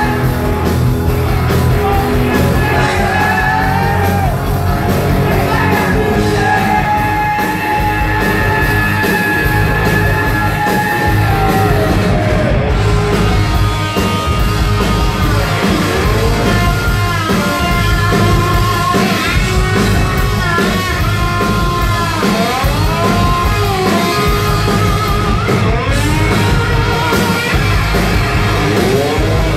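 Hard rock band playing live, with electric guitars, bass and drums under a shouted, raspy lead vocal, heard from the audience in a concert hall.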